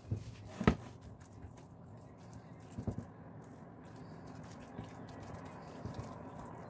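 Hands squishing and patting raw ground beef with chopped vegetables in a glass baking dish: soft, wet, irregular pats and squelches. A sharp knock comes just under a second in, and a couple of lighter knocks about three seconds in.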